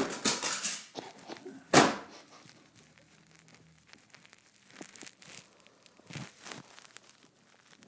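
A printer being handled: rustling and clattering in the first second, one sharp knock about two seconds in, then a few fainter clicks and knocks.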